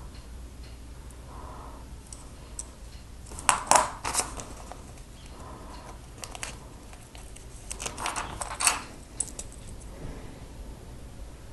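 Handling noises while Lego stickers are peeled from the sticker sheet and pressed on: the sheet crinkling with small plastic clicks, in two short clusters about three and a half and eight seconds in, over a faint low hum.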